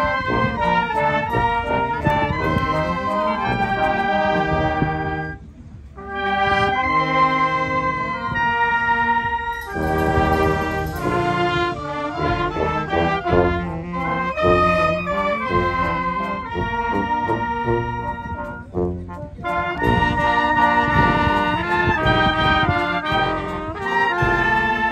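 Wind band of clarinets, saxophones, trumpets and sousaphone playing a lively tune in full ensemble, with a brief break about five and a half seconds in before the band comes back in.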